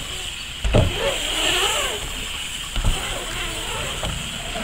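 BMX bike riding a wooden mini ramp: tyres rolling on the plywood with two dull thumps about two seconds apart as the bike comes down the ramp. Faint voices in the background.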